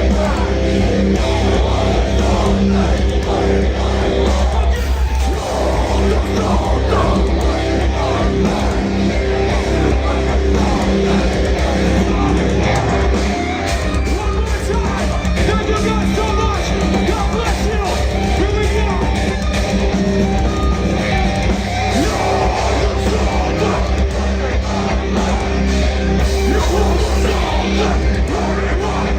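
Live metalcore band playing at full volume: heavily distorted guitars and drums in a dense, unbroken wall of sound.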